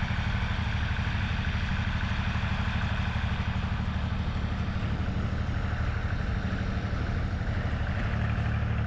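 An engine running steadily at an even idle, its low note growing a little stronger about eight seconds in.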